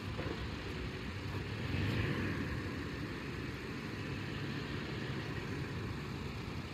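An SUV towing a small boat on a trailer moving slowly at low speed: engine running and tyres rolling on asphalt, a little louder about two seconds in.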